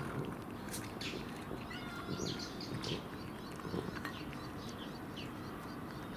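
Birds chirping: short high calls scattered irregularly through, over a steady low background noise.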